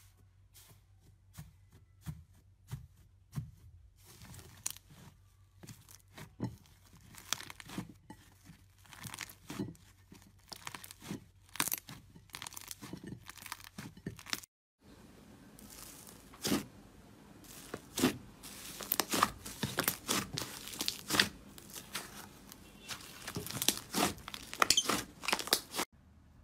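Hands pressing and kneading a puffed-up, airy green slime, making quick runs of crackles and pops. The crackling stops briefly about halfway, then comes back louder and denser.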